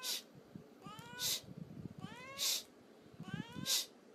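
Domestic cat meowing, three calls about a second apart, each rising in pitch and ending in a short breathy hiss.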